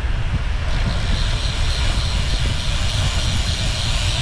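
Wind rushing over the microphone of a moving bicycle camera, a steady low rumble. A high, even hiss joins about a second in.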